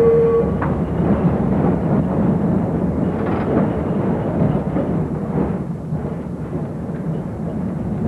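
Steady rumble and rattle inside 1922 Peter Witt streetcar 2424 as it runs along the track. A steady whine stops about half a second in.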